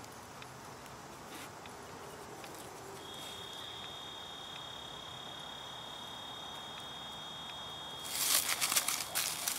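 Dry leaf litter rustling faintly underfoot as a dog moves about, with a steady high insect buzz joining about three seconds in. Near the end comes a louder run of crunching and crackling in the dry leaves.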